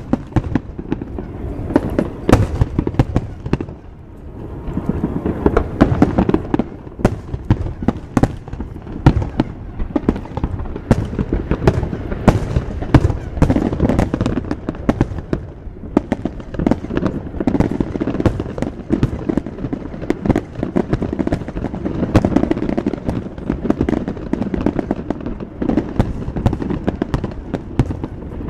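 Aerial fireworks display: shells bursting in quick succession, a dense run of bangs and crackles over a steady low rumble. It thins briefly about four seconds in, then builds again.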